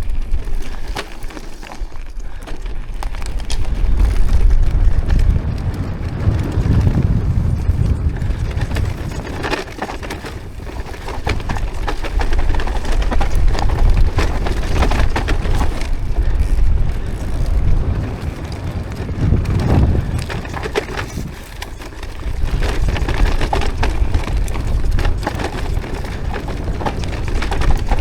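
Bicycle ride on a rough track: a heavy low rumble of wind buffeting the microphone, with tyres crackling and rattling over stones.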